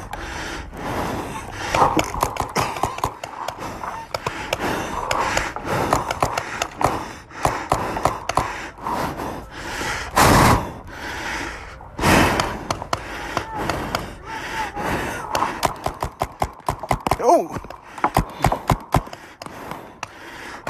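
Hard breathing close to a phone microphone, under many irregular sharp pops of paintball markers firing. There are a couple of loud rushing bursts about halfway through.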